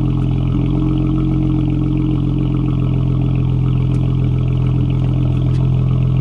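2019 Dodge Challenger GT's 3.6-litre Pentastar V6 idling steadily, heard at the tailpipes through an aftermarket exhaust: SLP Loudmouth 2.5-inch resonators, muffler and resonator delete, and 2.5-inch pipes from the X-pipe to the tips.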